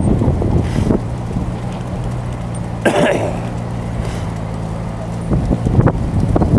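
Bicycles rolling over a cobbled street, the bike and its mounted camera rattling irregularly, with a brief burst of noise about three seconds in. Under it, the steady hum of a motor vehicle engine running close by.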